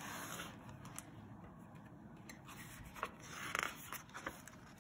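Page of a hardcover picture book being turned: soft paper rustles and scrapes, loudest about three and a half seconds in.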